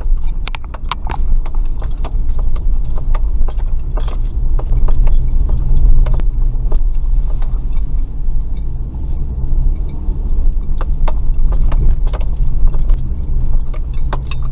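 Off-road truck driving over rough ground: a steady low engine and drivetrain rumble, with frequent irregular knocks and rattles as the vehicle bounces.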